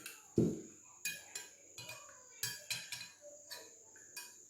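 Kitchen utensils and dishes clinking: a dull knock, then a run of light, irregular clinks with a short ring, as the finished syrup is handled and transferred into a bowl.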